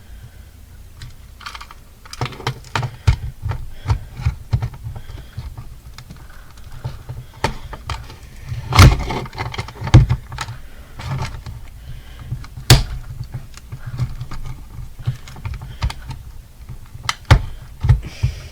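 Hard plastic clicking, knocking and rattling as an alarm clock's casing is handled and pried at. The clicks come in quick runs, with a few much louder knocks around 9, 10, 13 and 17 seconds in.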